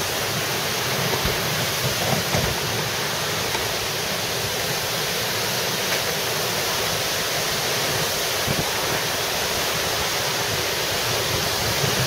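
Severe thunderstorm wind and hard rain, a steady loud rushing, with gusts buffeting the microphone in low thumps a little after the start.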